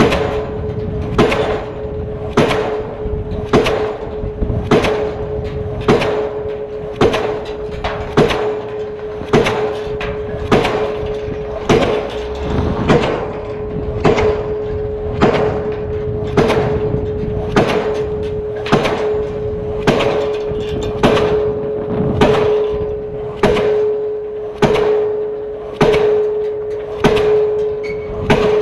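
Diesel pile hammer in swinging leads driving a steel H-beam batter pile: a sharp, steady blow about once every 1.2 seconds, over a steady ringing tone.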